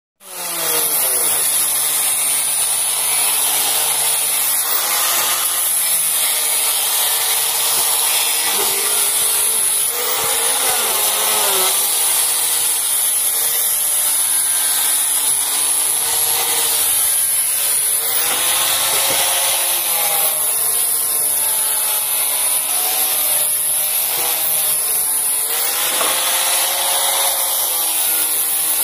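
Electric wood planer running while planing wood: a loud, steady, hissing cutting noise that starts abruptly, with the motor's hum dipping and recovering in pitch every few seconds as the board is fed through.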